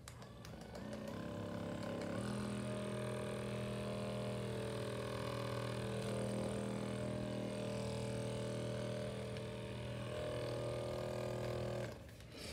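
FitRx Pro percussion massage gun running: its motor buzzes up about a second in, steps up in pitch about a second later, runs steadily and stops near the end.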